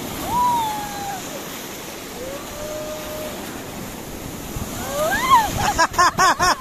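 Surf washing in over the shallows, a steady rush of breaking waves. Over it come a few drawn-out high vocal calls, and near the end a quick burst of high-pitched laughter.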